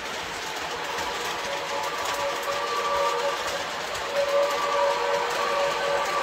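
Sound-effect steam whistle of an MTH RailKing Commodore Vanderbilt model locomotive, a chime of several notes blown in a few blasts starting about a second and a half in, over the steady running noise of the model train.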